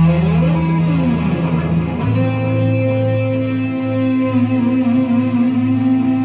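Strandberg headless electric guitar played in an improvised solo: in the first two seconds notes slide in pitch, then from about two seconds in a chord rings on, its top note wavering with vibrato about halfway through.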